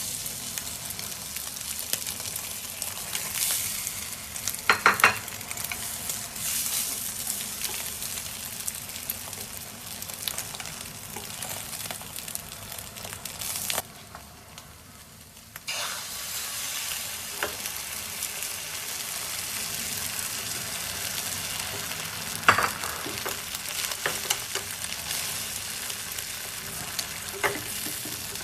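Food sizzling as it fries in a pan and is stirred, with a few sharp clinks of a utensil against the pan, the loudest about five seconds in and again past the three-quarter mark. The sizzle drops away for about two seconds midway.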